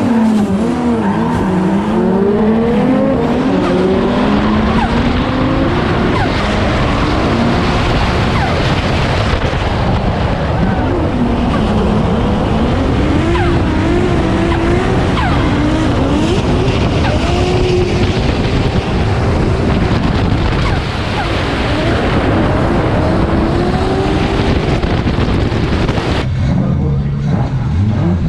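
A drift car's 2JZ straight-six engine, in a Nissan S15, revving up and down continuously through a drift run, with tyre noise under it. The sound changes suddenly near the end.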